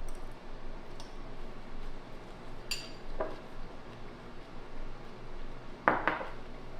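Cutlery clinking against a plate while eating: a few scattered light clicks, with a louder clatter near the end.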